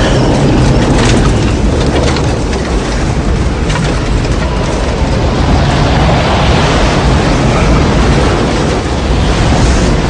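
Tornado sound effect: a loud, continuous deep rumble and rush of wind, with a few sharp cracks in the first couple of seconds.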